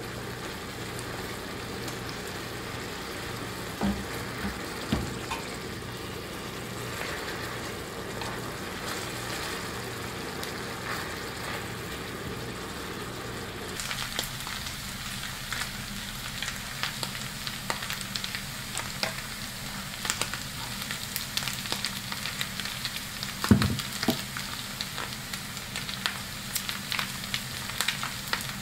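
Ground beef sizzling in a frying pan as it is stirred with a silicone spatula. From about halfway the frying turns crackly with many small pops, and one sharp knock stands out a little after two-thirds through.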